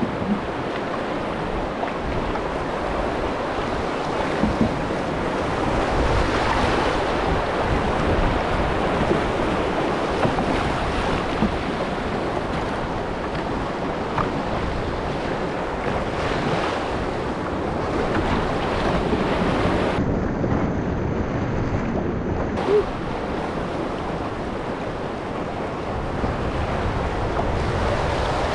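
Rushing whitewater of river rapids around a canoe as it runs them, a steady roar of moving water, with wind noise on the microphone.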